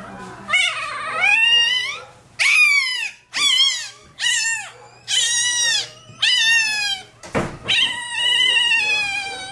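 Newborn Rottweiler puppy crying: a string of about seven high-pitched yelps, each rising then falling in pitch, the last one drawn out. It cries out in pain as its tail is being docked.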